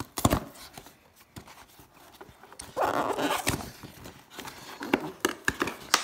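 Cardboard shipping box being handled and pried open by hand: scattered knocks and taps on the cardboard, with a stretch of scraping and rubbing about three seconds in.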